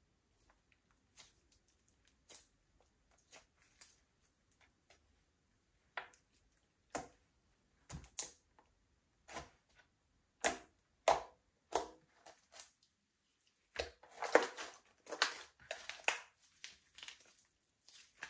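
Slime being squished and stretched by hand, making sticky clicks and pops. They are sparse and soft at first, with a few louder ones in the middle, then come thick and fast in the last few seconds.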